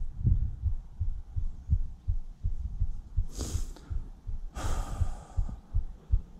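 Wind buffeting the microphone in irregular low thumps. Two breaths from the person holding the camera are heard over it, a short one just after three seconds in and a longer one at about four and a half seconds.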